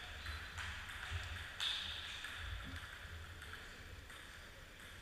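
Table tennis rally: the ball clicking sharply off bats and the table a few times in the first couple of seconds, the loudest click about one and a half seconds in.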